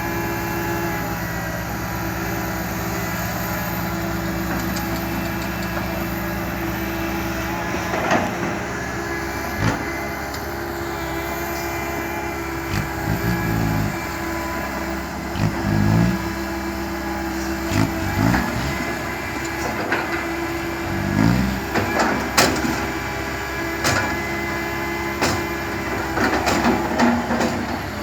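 Diesel engine of heavy earthmoving machinery running steadily. From about eight seconds in it is joined by scattered metallic clanks and knocks and short swells in engine pitch as the machine works.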